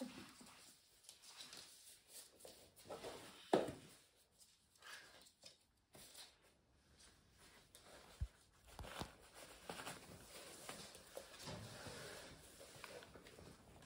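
Eurasier puppies playing with plush toys on a hard floor: quiet scuffling paws, rustling fabric and scattered light knocks, the loudest a thump about three and a half seconds in and a sharp tap around eight seconds.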